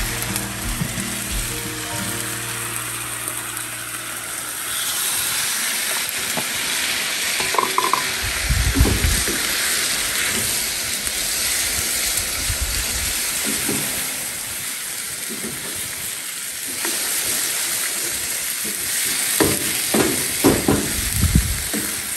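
Beef, onions and sauce sizzling in a wok over a gas burner just after the sauce goes in. A wooden spoon stirs and knocks against the wok now and then, with a run of knocks near the end.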